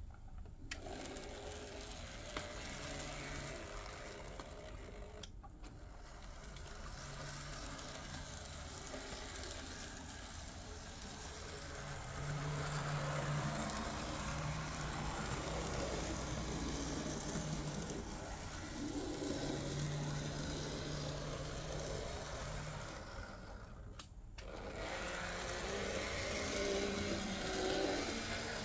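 Märklin Z-scale model steam locomotive running on its track: the small electric motor and gearing whir steadily as the wheels roll on the rails, louder at times as it comes nearer.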